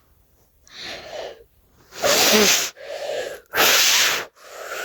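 A person blowing hard through the mouth in several separate short gusts, used as the wind against a small keycap model.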